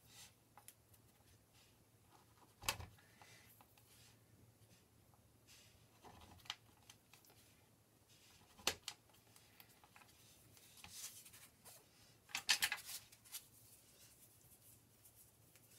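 Faint handling of a plastic cutter and sugar paste on a work board: scattered light taps, clicks and rustles, with a sharper tap about three seconds in, another near nine seconds, and a quick cluster of taps near the end.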